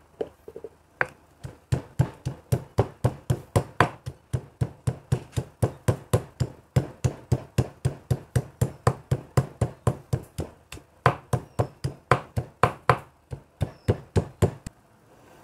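Pestle pounding garlic, shallot and ginger in a mortar: a steady run of thudding strokes, about three a second, with a couple of brief breaks.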